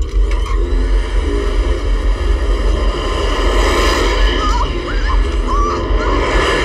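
A loud, steady, deep rumbling drone with a noisy rattle over it, the film's sound of the alien craft bearing down on the house. A few short wavering squeals come through it in the middle.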